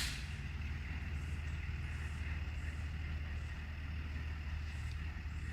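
An engine running steadily with an even low hum and no change in speed.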